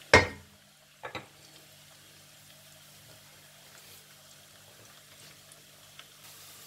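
Chopped onions frying in oil in an aluminium pan with a faint steady sizzle, cooking to a light brown. A wooden spatula knocks sharply on the pan right at the start and again, more softly, about a second later. A low steady hum runs underneath.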